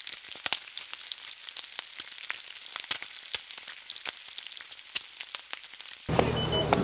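Bacon sizzling on a hot ridged grill pan: a steady hiss with many small crackling pops of spitting fat. About six seconds in it cuts abruptly to a louder steady hum with a short high beep.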